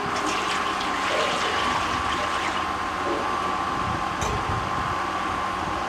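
Water steadily poured into a pan of chicken browning in masala.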